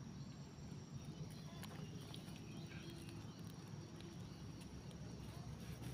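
Long-tailed macaques: faint short squeaks and a few light ticks over a low steady rumble.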